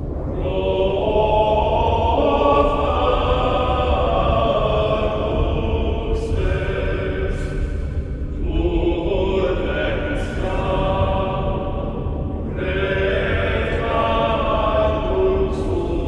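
Dark background music: held choir-like chords that change every few seconds over a steady low drone.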